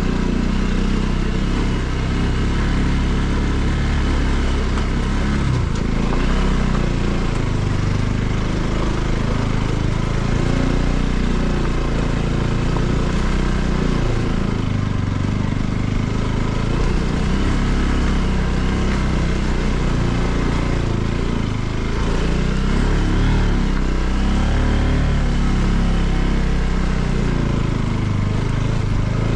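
Bajaj Pulsar NS200's single-cylinder engine running as the motorcycle is ridden along a rough dirt lane, its revs rising and falling.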